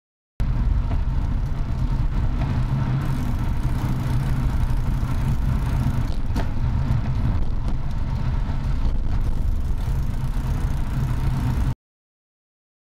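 Car engine and road noise picked up by a drive recorder while driving: a steady low rumble that starts and stops abruptly.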